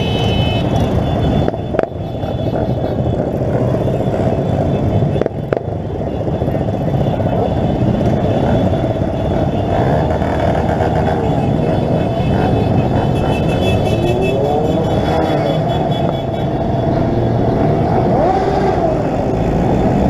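Many motorcycles riding together in a convoy, their engines running steadily. Several engines rev up and back down in the second half.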